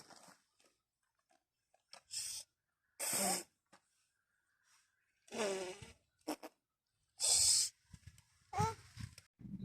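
A few short breaths and brief wordless vocal sounds, each about half a second, separated by silence.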